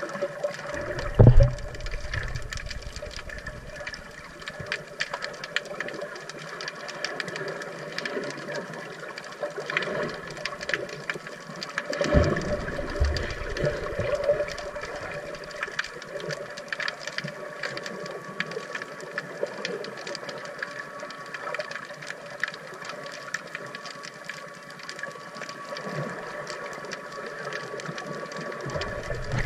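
Underwater sound picked up through an action camera's waterproof housing: a steady hum with constant fine crackling clicks, and a few dull low thumps, the strongest about a second in and another around twelve seconds in.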